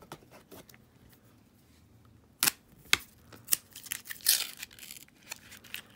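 Half-dollar coins and their paper roll wrappers being handled: a few sharp clicks of coins about two and a half to three and a half seconds in, then a brief crinkling, tearing rustle of paper around four seconds in.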